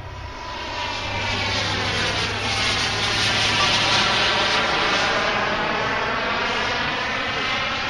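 Shok Jet radio-controlled model jet flying past, a steady whooshing rush that swells to its loudest about four seconds in and then eases, with a sweeping shift in its tone as it goes by.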